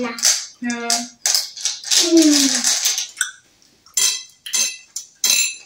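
A child's voice for the first few seconds, then from about three seconds in a run of light clinks as small hard-shelled candies are stirred and picked out of a ceramic bowl.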